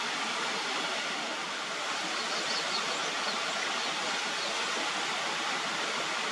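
Small waterfall: water splashing steadily down over rocks, an even rushing splash.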